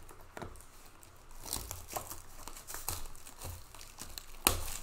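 Plastic shrink-wrap being torn and peeled off a trading card box, crinkling and crackling irregularly, with one sharp crack near the end.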